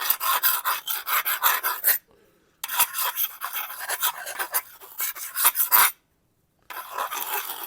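A 420J2 stainless knife edge scraped rapidly back and forth on a Tormek sharpening stone to dull it before sharpening. The rasping comes in three spells with short silent breaks.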